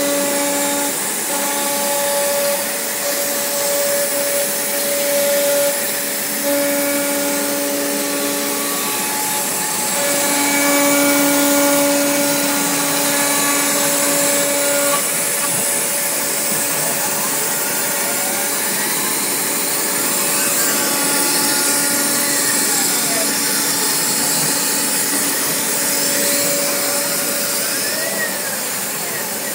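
CNC router cutting Dibond aluminium composite panel: a loud, steady machine whine over a hiss, with a pitched tone that cuts in and out. In the second half, several whines glide up and down in pitch.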